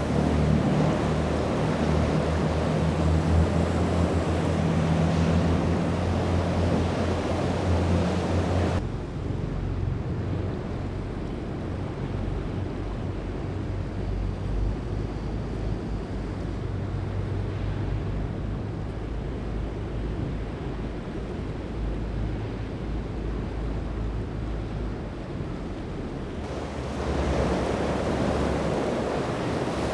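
Boat engines droning steadily over the wash of waves, with wind buffeting the microphone. About nine seconds in, the sound changes abruptly to a duller low rumble of wind and surf, and the brighter wash of waves returns near the end.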